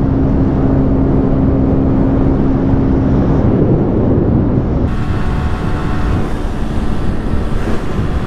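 Bajaj Pulsar 125cc single-cylinder motorcycle engine running steadily at high cruising speed, about 100 km/h, under heavy wind rush from the ride. The engine note holds one steady pitch, and the sound of the wind shifts about halfway through.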